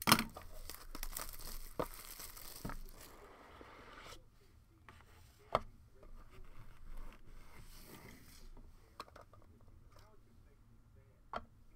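Plastic wrapping crinkling and tearing as a trading-card box is opened, followed by a few sharp clicks and knocks from handling a clear plastic card case.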